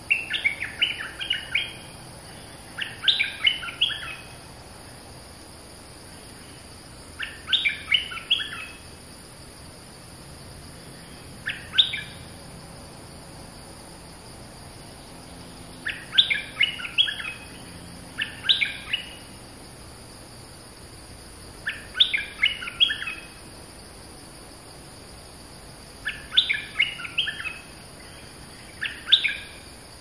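Bulbul song: short phrases of quick, choppy chirping notes, repeated about every three to four seconds. A steady high insect drone runs underneath.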